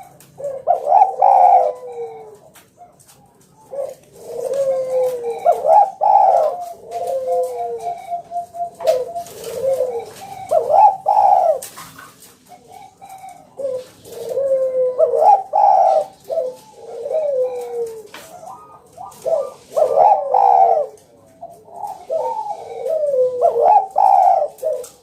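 Spotted dove (tekukur) cooing over and over in runs of phrases, with short pauses between the runs.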